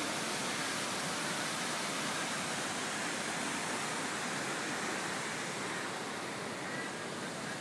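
Steady rush of river water pouring over shallow rapids, easing slightly near the end.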